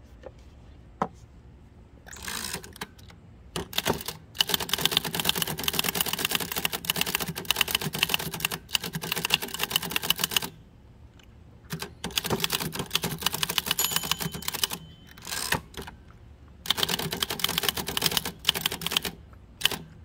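Typing on a 1949 Adler Favorit 2 thrust-action manual typewriter: fast runs of sharp keystrokes, the typebars striking the platen, starting about two seconds in. The runs are separated by short pauses and there are a few lone strokes near the end.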